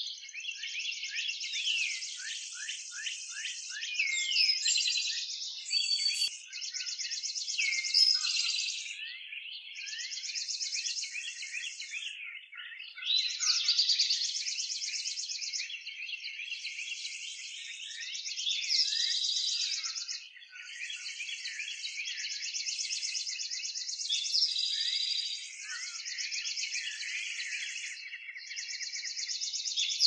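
Many birds calling at once: a dense run of overlapping high chirps and short downward-sweeping whistles, with rapid high trills of a second or two each repeating throughout.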